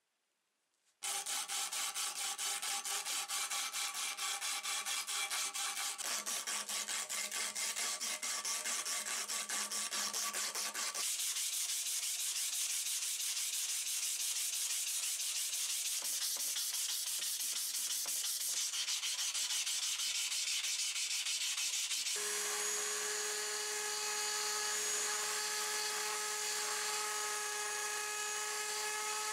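Steel machete blade being wet-sanded by hand on fine-grit sandpaper (1000 to 2000 grit), quick back-and-forth rubbing strokes starting about a second in, joined in several short takes. Late on, a small rotary tool runs with a steady whine as its fine bit cleans out the stamped maker's mark.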